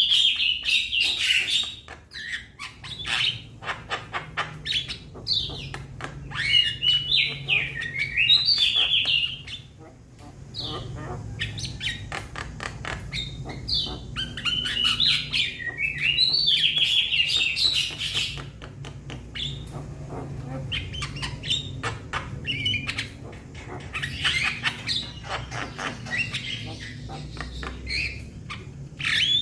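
Young Javan myna calling: repeated bursts of high, rapid chattering phrases broken by short pauses, with many sharp clicks between them.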